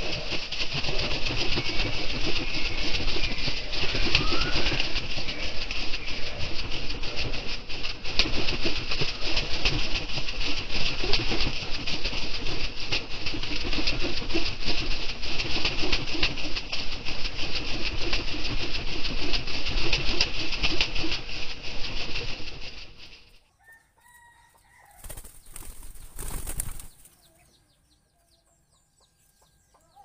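Spotted doves beating their wings hard inside a wooden, wire-mesh cage: a dense, rapid flutter over a steady high hiss. It cuts off suddenly about 23 seconds in, followed by one short burst a couple of seconds later.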